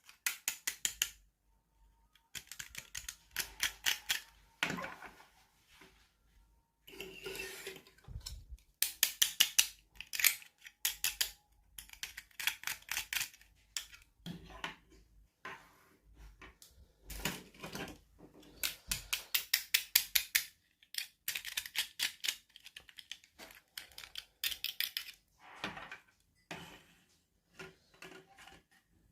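Toy packaging being handled and opened by hand: bursts of rapid clicking and crackling, many clicks a second, broken by short pauses.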